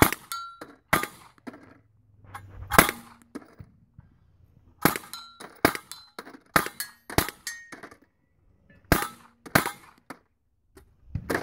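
Hand-cranked brass Gatling gun firing single shots at an uneven pace, about fifteen in clusters with short pauses, rather than a fast continuous burst. Some shots are followed by a short metallic ring.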